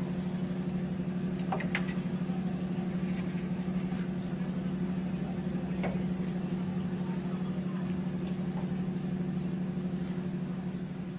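A steady, low engine drone with a constant pitch, and a few faint clicks over it.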